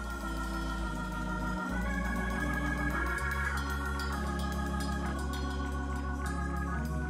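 Organ playing sustained chords over a steady low bass, the chords changing every second or so.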